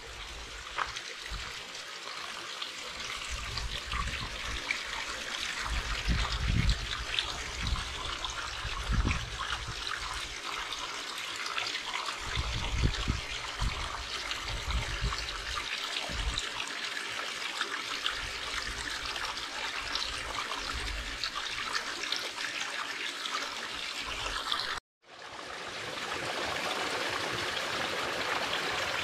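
Spring-fed brook trickling and splashing over mossy rocks and gravel, with a small cascade, in a steady rush of water. Several bursts of low rumble come and go in the first half. Near the end the sound cuts out for an instant and comes back.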